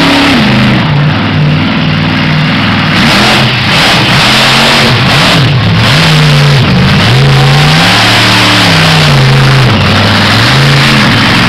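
Monster truck engine revving hard, loud, its pitch rising and falling over and over as the throttle is blipped and held.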